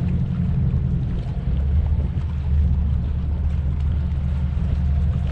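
A steady low engine drone that gets a little stronger about a second and a half in, with little sound above it.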